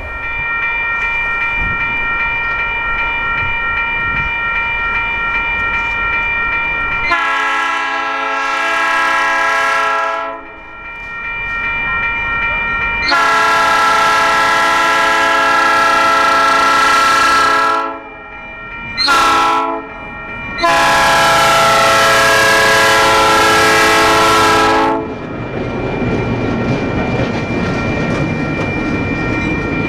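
Diesel locomotive air horn sounding the grade-crossing signal: two long blasts, a short one, then a final long one. A bell rings steadily throughout, with train running noise underneath.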